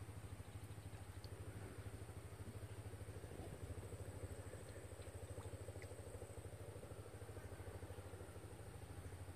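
A small engine running steadily, heard faintly as a fast, even putter that holds the same pace throughout.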